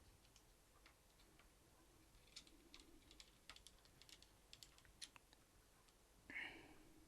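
Faint, irregular small clicks and taps of hands and a small screwdriver working on the internals of an opened laptop. A brief, slightly louder sound comes a little after six seconds in.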